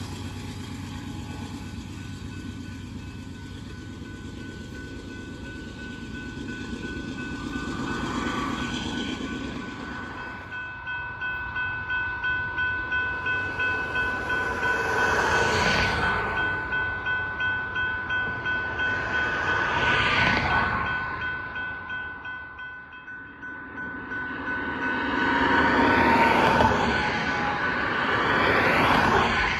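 Locomotives rumbling past and fading away. About ten seconds in, a grade-crossing signal's electronic bell starts dinging rapidly and keeps going after the train has gone, typical of a crossing malfunction. Road vehicles swell past now and then over the bell.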